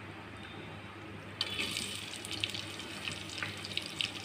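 Sliced onions and green chillies dropped into hot oil with whole spices, starting to sizzle about a second and a half in: a steady hiss with many small crackles and pops.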